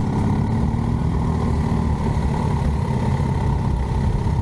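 Motorcycle engine running steadily while the bike is ridden along, mixed with road and wind noise.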